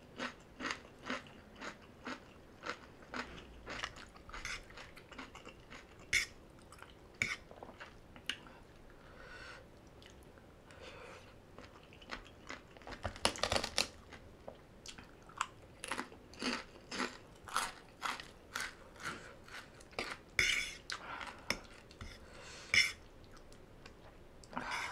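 Close-miked eating sounds of a person chewing spicy papaya salad with noodles and vegetables: wet chewing and crunching about twice a second, denser and louder for a moment about halfway through. Now and then a metal fork touches the plate.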